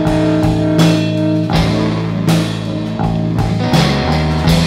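A live rock band playing an instrumental passage: electric guitars over bass guitar and drum kit.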